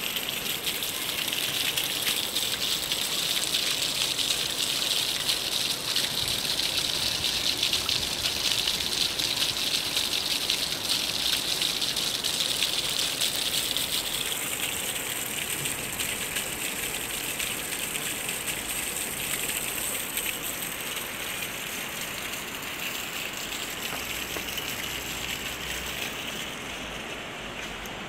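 Rainwater gushing out of a plastic downspout and splashing onto paving stones, a steady rushing splash. About halfway through, the hissy top of the sound softens, and it grows gradually quieter through the second half.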